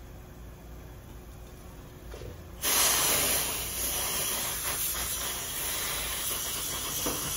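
Aerosol spray can hissing in one long continuous burst as it sprays onto a gold pendant held in setting shellac; the hiss starts abruptly about two and a half seconds in and eases slightly as it goes on.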